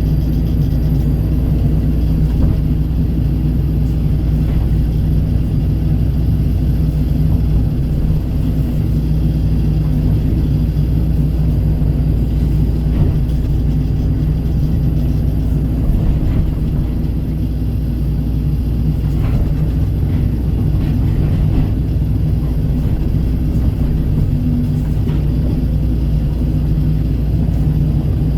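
Kobelco excavator's diesel engine running steadily, a constant low drone, with a few faint knocks over it.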